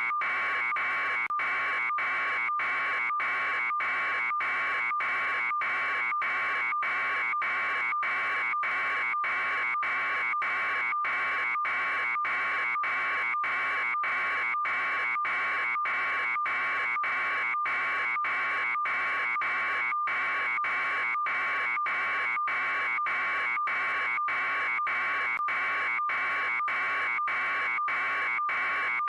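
A steady electronic buzzing tone, broken by brief gaps at an even beat of just under two a second.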